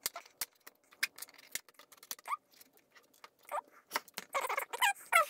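Plastic clip fittings on a monitor's LCD assembly being pried up: a series of sharp snaps and clicks with short creaks of plastic, growing dense near the end.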